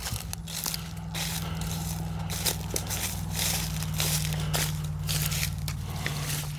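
Dry brush, twigs and leaves crackling and snapping irregularly, as of someone moving through or handling cut limbs, over a steady low hum.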